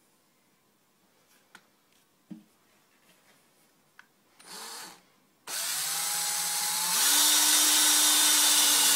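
Electric hand drill with a twist bit starting a pilot hole in stainless steel: after a few faint clicks, the drill starts a little past halfway and runs steadily, then speeds up to a higher, louder whine about a second and a half later as the bit is driven fast to get the cut started.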